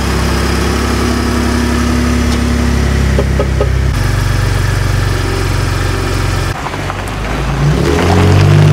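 Ford F-150 Raptor's 3.5-litre twin-turbo V6, just started, idling steadily. About seven seconds in the engine note rises as it revs up.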